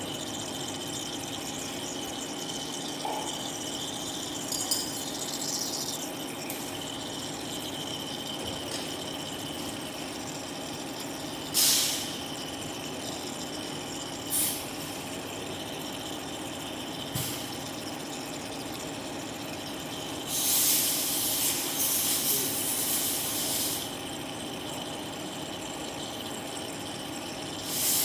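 EDM drilling machine burning a hole into carbide: a steady electrical hum with a steady high whine, broken by three short hissing spurts of spray, then a longer hiss lasting about three seconds and another starting near the end.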